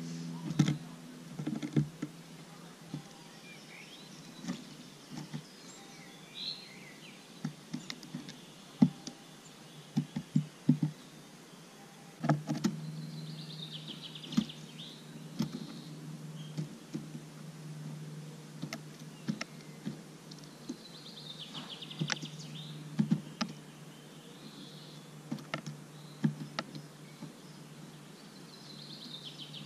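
Great tit pecking and hammering at sunflower seeds on a wooden feeder floor: irregular sharp taps and clicks of its bill on seeds, husks and wood, over a low steady hum. Short high bird chirps come a few times.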